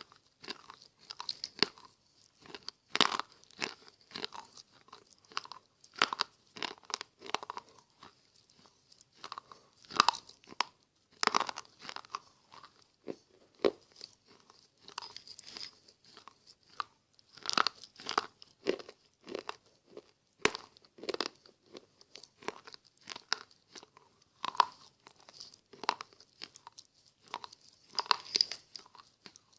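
Slate pencils being bitten and chewed: irregular crisp crunches coming in clusters, with short pauses between them.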